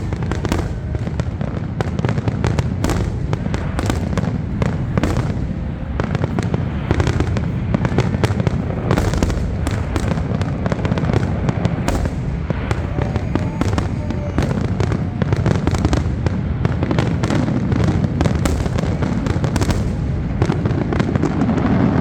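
Fireworks display bursting without pause: dense, rapid crackling and cracks over a continuous low rumble of booms.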